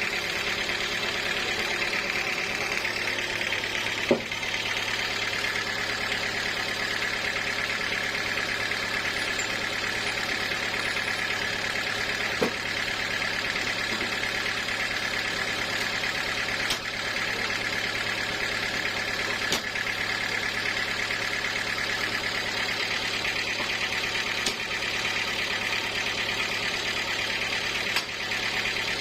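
Sawmill machinery running steadily, with a low hum under a hissing whir and a few sharp knocks scattered through it.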